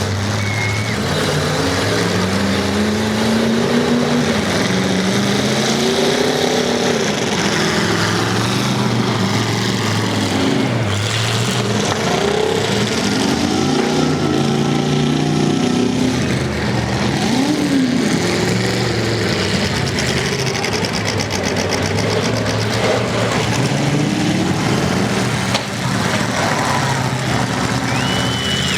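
Several demolition derby cars' engines running and revving together, their pitches rising and falling over and across one another.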